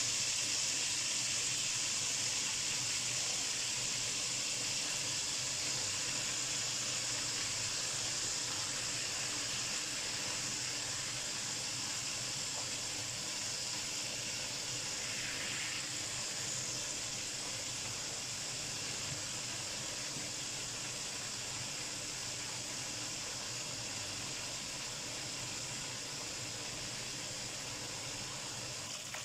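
Whole flying fish in a vinegar-and-garlic marinade frying in a pan of oil: a steady sizzling hiss that slowly fades a little.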